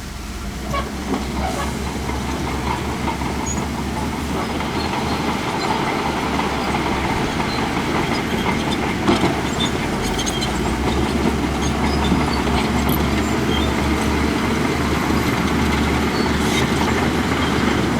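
Heavy earthmoving machinery at work: a diesel engine runs under load with continuous clanking and rattling of metal and rock, growing slowly louder.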